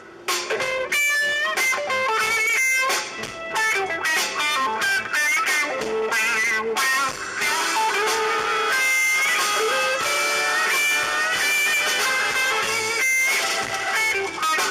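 Background rock music in an instrumental break, led by an electric guitar playing bent, wavering notes over a steady band.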